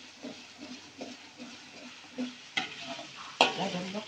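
Minced garlic, shallots and ginger sizzling in hot oil in a steel wok while a metal spatula stirs and scrapes them. There are two sharp clanks of the spatula against the wok, about two and a half and three and a half seconds in, and the second is the loudest.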